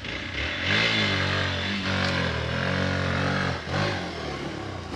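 Hero Xpulse 200 single-cylinder motorcycle engine revving hard on a climb. The revs rise about half a second in, dip and pick up again a couple of times, then drop off near the end.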